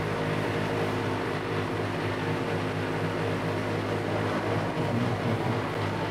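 A Bio-Cutter wet shredder running, its motor giving a steady hum while it churns plant waste into a watery slurry in a steel bowl.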